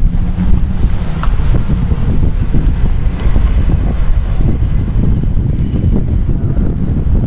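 Steady low rumble of wind buffeting the microphone, mixed with the sound of a large SUV driving slowly past.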